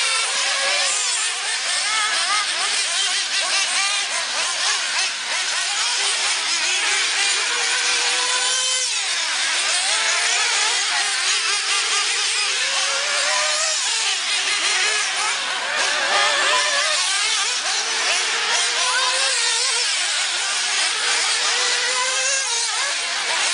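Several 1/8-scale nitro RC buggies racing, their small two-stroke glow engines revving up and down in overlapping high pitches as they accelerate and brake around the track.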